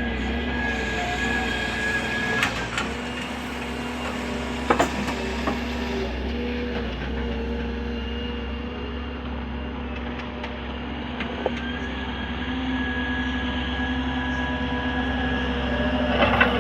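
Heavy machinery engine running steadily, with a held whine over its hum and a few sharp metallic knocks, twice in the first five seconds and again near the end.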